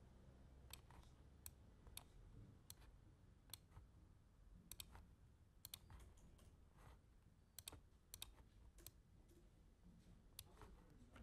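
Faint computer mouse clicks at an irregular pace, several in quick pairs, over near-silent room tone.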